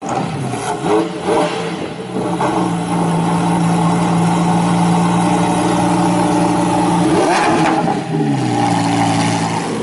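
Lamborghini Huracán EVO's V10 engine starting up with short flares, then settling into a steady, fast idle. One quick rev blip about seven seconds in, then the idle steps down lower near the end.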